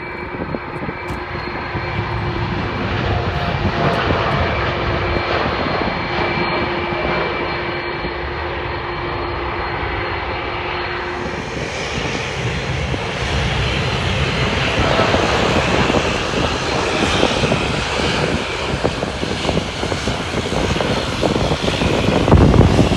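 Boeing 787 jetliners' turbofan engines at takeoff thrust: a steady jet roar with a whining engine tone. About eleven seconds in, a second 787 takes over as it lifts off and climbs away, and its roar grows to its loudest near the end.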